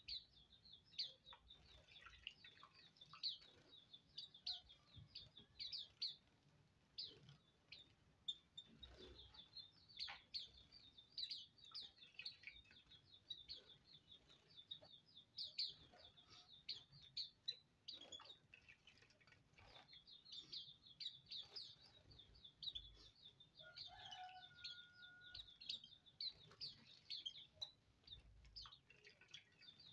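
A group of caged Hume's white-eyes calling constantly: many short, thin, high chirps a second, overlapping one another.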